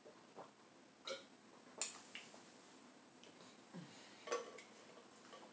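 Faint sipping and swallowing from an insulated tumbler, then a few sharp clicks and clinks as the tumbler's screw lid is handled and put back on.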